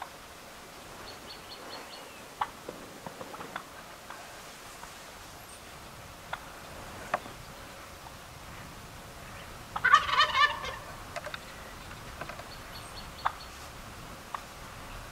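Gould's wild turkey gobbler gobbling once, a loud rattling burst of under a second about ten seconds in. Faint sharp ticks and a few faint high chirps come and go around it.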